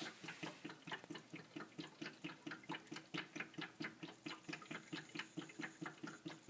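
Humidifier water tank glugging as it empties into the base: a rapid, regular gurgle of about five pulses a second as air bubbles up into the tank.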